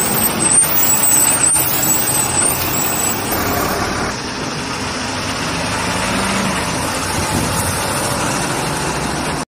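Heavy cargo trucks' engines running steadily on the road as a convoy of lorries moves off.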